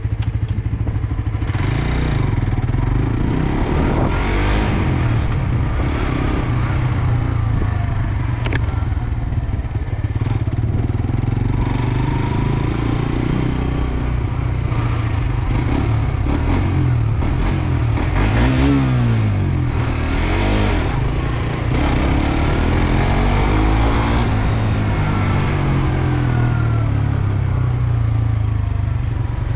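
Suzuki GSX-R sportbike engine running under way, heard from the rider's seat, its revs rising and falling again and again as it accelerates and slows.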